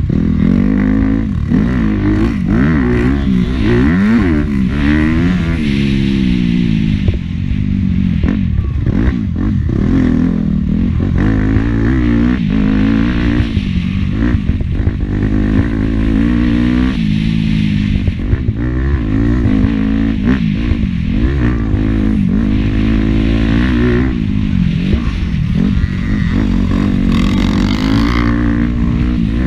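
Dirt bike engine heard up close from the bike, revving up and down over and over as it is ridden around a motocross track, its pitch climbing and falling with each throttle change and gear shift.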